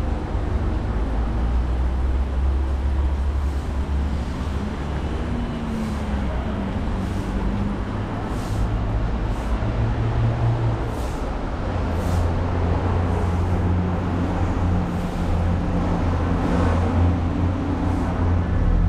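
Steady low rumble of nearby road traffic, with vehicle engines running and a few short faint hisses.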